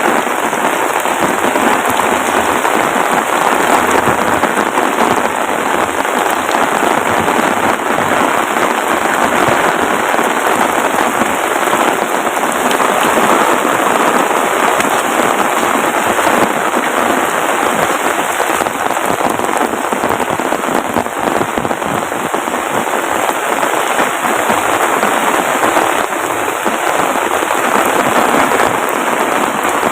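Heavy rain falling steadily, a dense patter of drops hitting surfaces close by.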